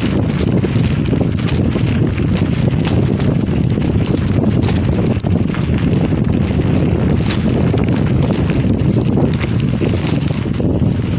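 Bicycle rolling along a gravel trail: the tyres crunch over loose gravel, a steady low rumble with scattered small clicks throughout.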